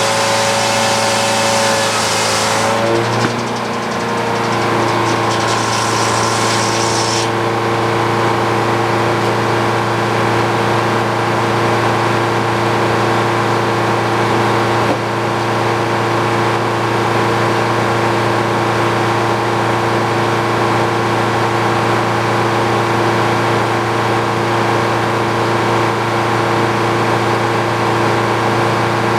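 Frick OO circular sawmill blade cutting through an ash log, with a loud hiss that stops about three seconds in as the cut ends. The engine driving the mill then runs on steadily, a little faster once the load comes off, with the blade spinning free.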